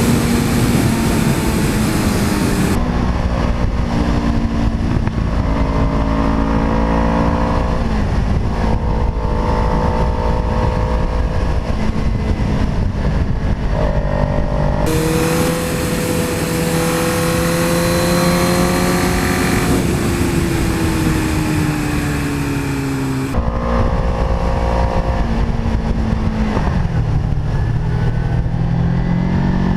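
Sport motorcycle engine running at road speed, its pitch climbing under throttle and stepping down at gear changes and roll-offs. The sound changes abruptly three times as the footage cuts between onboard cameras on the two bikes.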